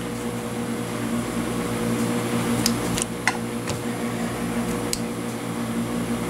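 Milling machine motor running steadily with no cut being made, a level hum. A few light clicks come in the middle as the quill is run down toward its stop.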